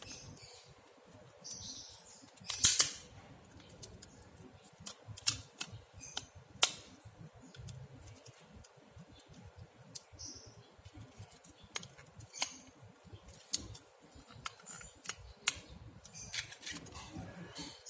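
Scattered sharp clicks and short scrapes of small plastic and metal phone parts and tools being handled, the loudest click about three seconds in.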